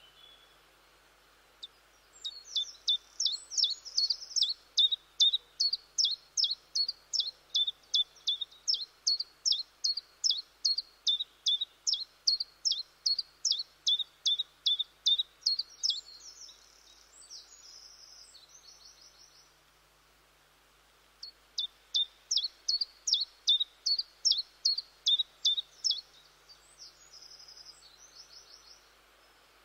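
Common chiffchaff singing: a long run of sharp, evenly spaced two-pitch notes, about three a second, then a pause and a second, shorter run. Each run is followed by a softer, quicker twitter.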